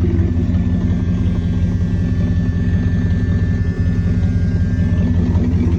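A 1977 Dodge Monaco's 318 V8 idling steadily, carrying the noise of an exhaust leak that sounds like a slap from the timing chain; the leak comes from an exhaust crossover tube that is connected to nothing.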